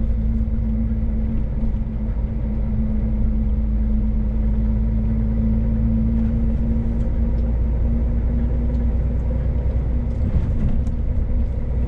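Inside the cab of a Scania S500 truck driving along at road speed: a steady engine drone and road rumble, with a constant low hum that eases slightly after about seven seconds.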